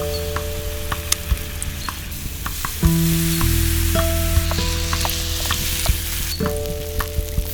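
Background music of slow, held chords with a deep bass, changing twice, over a steady hiss of water scattered with small crackling clicks.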